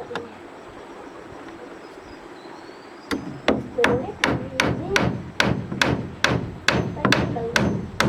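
Hammer blows on wood in a quick steady rhythm of about two to three strikes a second, starting about three seconds in, each with a short ringing tail.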